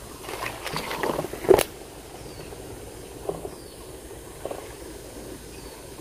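Branches and needles of a cemara tree rustling and crackling as a climber shifts among them, with one sharp snap or knock about one and a half seconds in. A couple of faint knocks follow later, and faint high chirps are heard.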